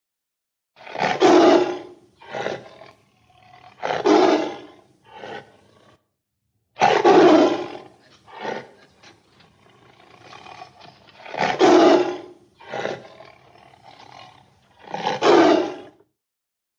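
A large animal giving a series of loud roars: five long calls a few seconds apart, with shorter, weaker grunts between them.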